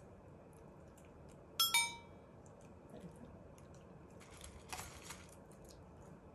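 A dog's food dish clinks twice in quick succession, each strike ringing briefly, about a second and a half in. A short soft rustle follows a few seconds later.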